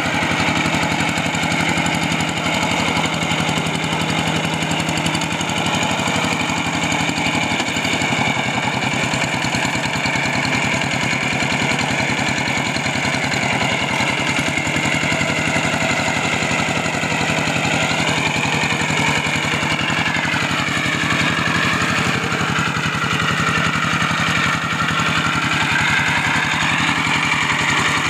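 Kubota G3000 hand tractor's single-cylinder diesel engine running steadily under load as it pulls a plough through deep, flooded paddy mud. Its pitch sags about two-thirds of the way through and climbs back near the end.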